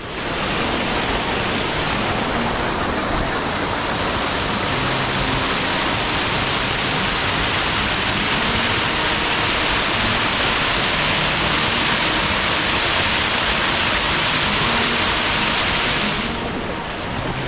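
Knyvet Falls, a waterfall, running as a steady, loud rush of falling water. It cuts in abruptly and drops away sharply about a second before the end.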